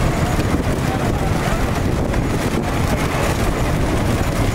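Steady wind rumble on the microphone mixed with the noise of running motor vehicles, even and unbroken throughout.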